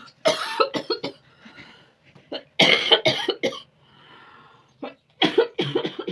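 Barking cough: a person coughing in three fits of several coughs each, a couple of seconds apart.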